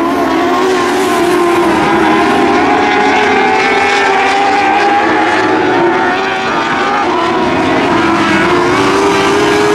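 Several motorcycle-engined dwarf race cars running together at racing speed on a dirt oval: a loud, steady, layered engine drone, the separate engine pitches wavering slightly up and down.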